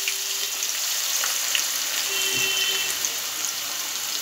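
Freshly added diced potatoes frying in hot mustard oil in a kadai, a steady sizzle.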